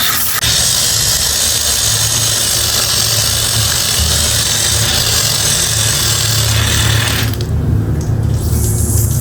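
A motor running steadily under a loud hiss; the hiss cuts off suddenly about seven seconds in while the motor hum carries on.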